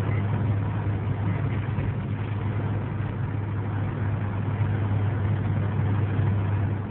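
Opel Calibra running steadily, heard from inside the cabin: a constant low engine and road drone that holds one pitch throughout.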